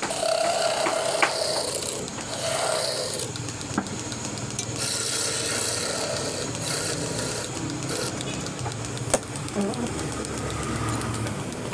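Woodworking sounds: a tool rasping and rubbing on wood, with a few sharp clicks scattered through it.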